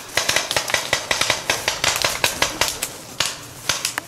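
Paintball markers firing in rapid, irregular volleys of sharp pops, several a second, with a strong shot a little after three seconds in.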